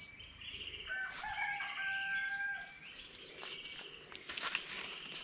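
A rooster crows once in the distance, a single long held call starting about a second in, over small birds chirping short repeated trills.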